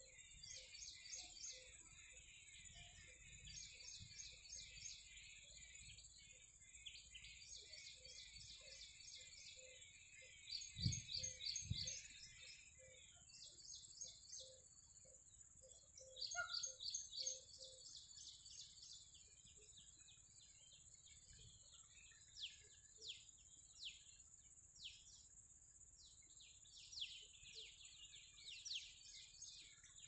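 Small birds chirping and calling in quick trilled bursts over a steady, high insect drone, with a faint low note repeating about twice a second through the first half. Two short low thumps come about a third of the way in.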